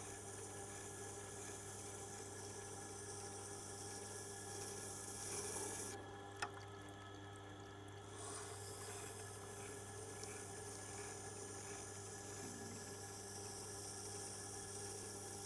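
Tormek wet grinder running with a steady low motor hum and water noise from the wet stone, as a hard tool-steel oboe reed scraping tool is ground on it; the hard steel is smoothing the stone toward a finer grit. A single short click about six and a half seconds in.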